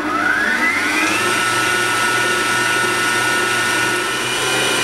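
Kenwood Cooking Chef stand mixer running at speed 3, its K-beater mixing flour into cake batter. The motor whine rises in pitch over the first second as it comes up to speed, then holds steady.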